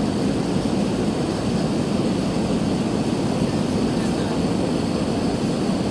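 Steady cabin noise of an Airbus A320-214 with CFM56 engines, heard from inside the passenger cabin: an even, low roar of engines and airflow with faint high tones above it.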